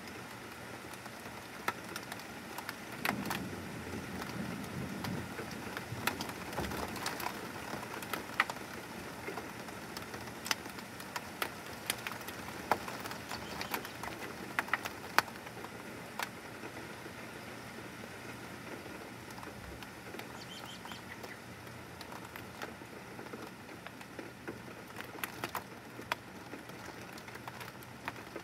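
Heavy rain falling steadily, with many sharp ticks of close drops striking. It is heaviest through the first half, with a low rumble between about three and seven seconds in, and eases after about sixteen seconds.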